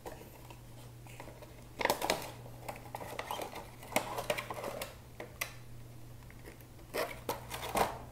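Cardboard toy box and clear plastic blister tray being handled and slid apart, crinkling and clicking in short clusters about two seconds in, around four seconds, and near the end, over a low steady hum.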